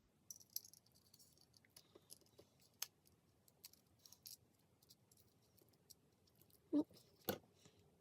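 Faint, scattered small clicks and light taps of tiny parts and tools being handled while routing a flex cable inside an iPod nano 5th generation. Two louder clicks come near the end.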